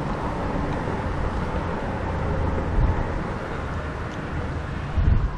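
Wind rumbling on the microphone over a steady outdoor noise, with two brief low thumps about three and five seconds in.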